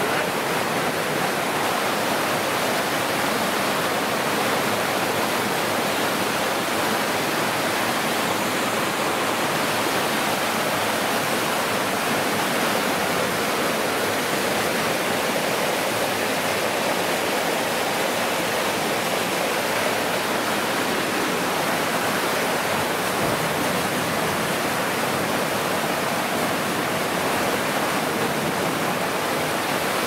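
Steady rush of a waterfall cascading down a rocky creek.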